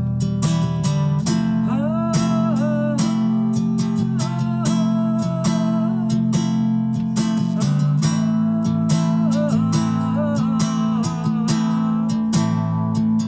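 Nylon-string acoustic guitar strummed and picked in a steady rhythm, ringing chords under a slow, wavering melody.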